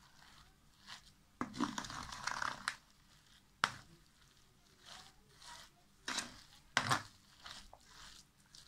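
Wet grated-vegetable batter being stirred and scraped with a spoon in a stainless steel bowl: squelching, crunching strokes, with a few sharp clicks of the spoon against the metal.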